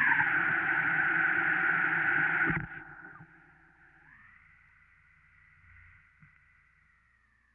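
Circuit-bent office telephone making glitchy electronic noise as its bend points are touched: a loud buzzy tone that slides down in pitch and cuts off suddenly about two and a half seconds in. A faint warbling tone follows, bending up and then down, and fades out.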